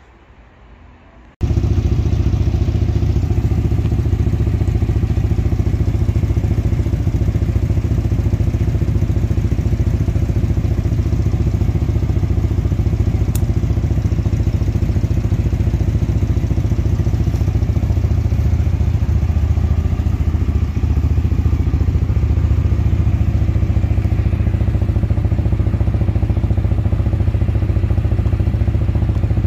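Husqvarna Svartpilen 250 single-cylinder motorcycle engine running steadily and loudly, cutting in suddenly about a second and a half in.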